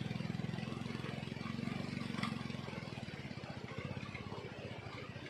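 Motorcycle engine running under load as the bike climbs a steep, loose, rocky track, with rapid steady firing pulses that slowly fade as it moves away uphill.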